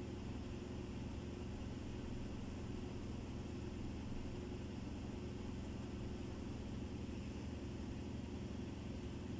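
Steady low machine hum with no other sound standing out.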